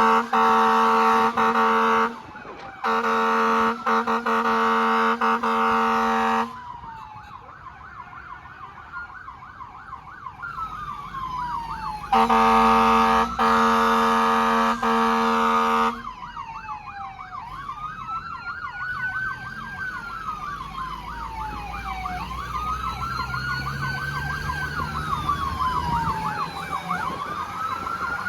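Fire truck's electronic siren with long horn blasts: the horn is held for about two seconds, then for nearly four, over a fast yelp. After a third horn blast about halfway through, the siren switches to a slow rising-and-falling wail with engine rumble underneath.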